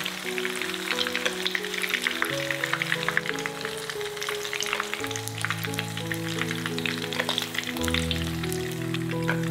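Oil sizzling in a frying pan around shallow-frying rice-paper rolls, with many small crackles and pops throughout. Background music plays underneath.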